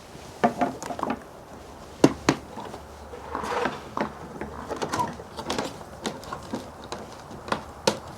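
Irregular clicks, knocks and clatter of tools and parts being handled: a dozen or so short, sharp knocks at uneven intervals, with no motor running.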